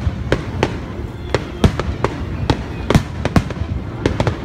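Aerial fireworks shells bursting overhead in a rapid, irregular series of sharp bangs, about two a second.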